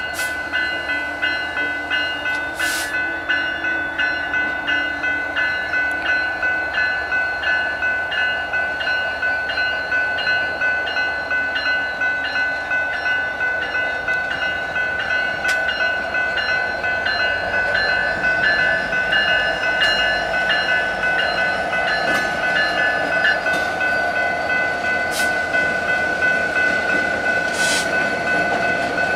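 Railroad grade-crossing bell ringing steadily, about two strikes a second, over the low rumble of diesel locomotives rolling slowly through the crossing.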